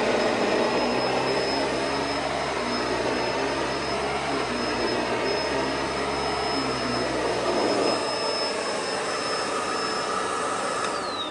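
Bissell SurfaceSense Pet upright vacuum running with its high motor whine and brush roll. About eight seconds in, the low rumble drops away as the brush roll slows on hard floor, the SurfaceSense feature cutting brush speed. Near the end the whine starts to fall as the motor spins down.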